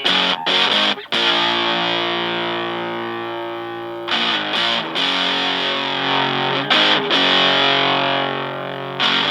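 Fender Stratocaster electric guitar played through a germanium fuzz pedal (a modified Fuzz Face) into a Fender Blues Junior amp, a thick distorted tone. A few quick staccato chords come first, then chords are struck and left to ring and slowly fade, with fresh strikes about four, five, seven and nine seconds in.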